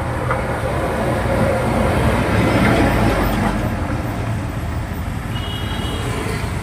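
Slowed-down sound effect: a steady low rumbling noise that swells slightly in the middle.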